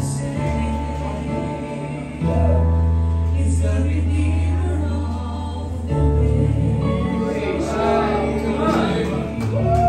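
Gospel song sung as a duet by a man and a woman into microphones, over an accompaniment of sustained bass chords that change every few seconds.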